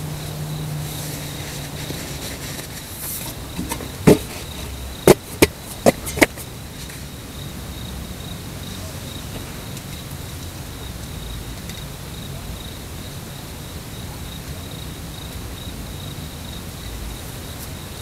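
Insects chirring steadily on one high note. About four seconds in comes a quick series of five sharp knocks, like hard blows on wood, over roughly two seconds.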